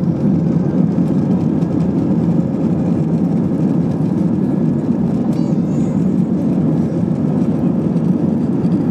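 Airbus A320 cabin noise while taxiing: a steady, even rumble of the engines and airframe heard from a seat over the wing, with a faint steady whine above it.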